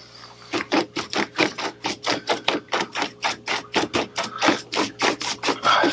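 Paintbrush scrubbing back and forth over wet paint on paper to blend it, in quick even strokes of about four a second.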